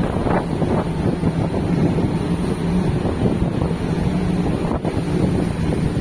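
Wind buffeting the microphone over the rush of white water churning along a large ship's hull at sea, with a steady low hum underneath.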